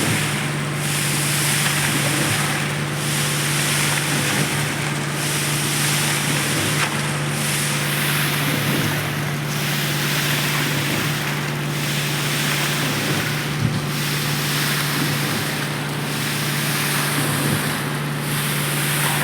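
Concrete-pouring machinery running: a steady engine drone under a rushing noise that dips and swells about every two seconds.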